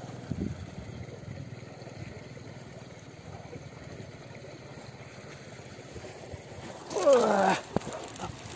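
Wind rushing on the microphone, then about seven seconds in a brief, loud, pitched shout that bends in pitch, followed by a single sharp click.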